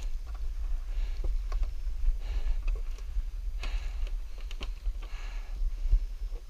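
A person breathing hard while climbing steep wooden steps, a breath about every second and a half. Light clicks and knocks come from feet and hands on the steps and netting, over a steady low rumble.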